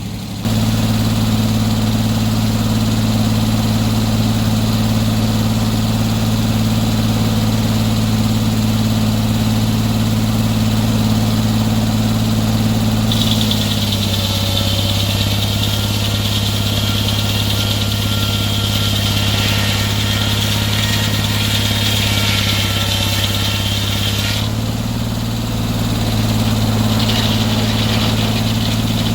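Sawmill engine running steadily at speed. About thirteen seconds in, the saw cuts through a log: a high cutting hiss joins and the engine note drops slightly under load. About eleven seconds later the cut ends and the engine runs free again.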